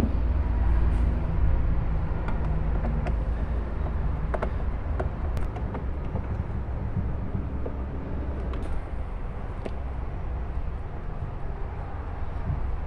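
Light clicks and ticks of a bolt and nut being fitted through the steering shaft of a toy ride-on jeep's steering wheel, scattered over a steady low background rumble.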